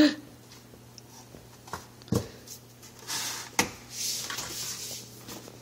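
Cardboard baking soda box handled and tapped as powder is poured into a paper cup, with a few sharp knocks and a soft rustling hiss midway. There is a brief loud sound at the very start.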